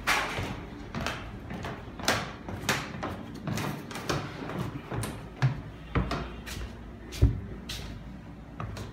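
Irregular knocks and clicks, roughly one or two a second, with a heavy thud about six seconds in and the loudest one just after seven seconds.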